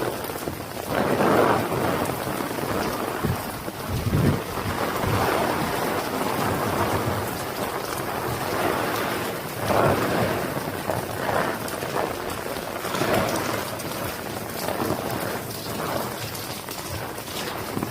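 Heavy rain falling steadily, a dense hiss that swells louder every second or two.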